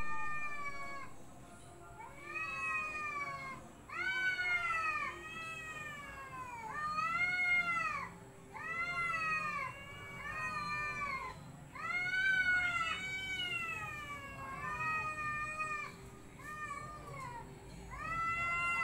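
Two cats yowling at each other in a standoff before a fight: a long run of drawn-out howls, each about a second long and rising then falling in pitch, following one another with short breaks and at times overlapping.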